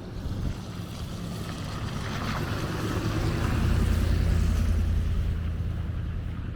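Strong wind gusting across the microphone: a low rumble with a rushing hiss above it, swelling to its loudest about four seconds in, then easing off.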